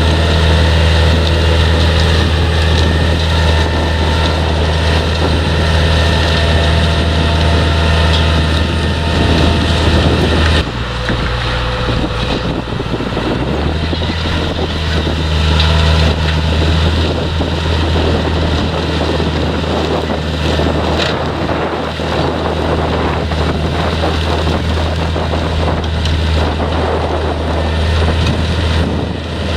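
Heavy diesel farm machinery of a potato harvest running steadily: tractor and potato harvester engines with a deep hum, easing briefly about ten seconds in and picking up again a few seconds later.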